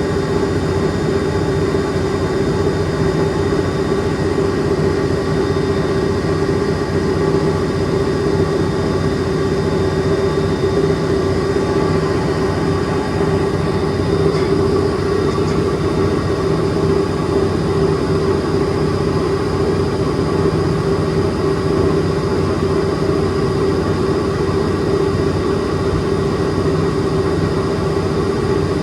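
Coin-operated commercial washing machine running, a loud steady motor hum with a constant drone.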